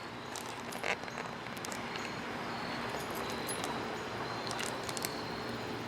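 Faint, irregular crackles and taps of a plastic water bottle inside a sock as a dog chews and mouths it, over a steady background hiss.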